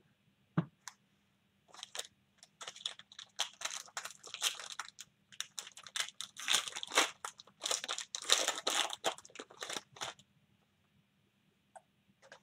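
Foil wrapper of a 2020 Panini Prizm baseball card pack being torn open and crinkled by hand, in a run of crackling rips lasting several seconds. A single knock comes just before it, about half a second in.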